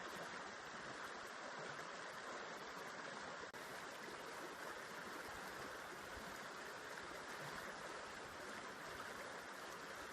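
River water flowing steadily, an even rushing sound with no breaks.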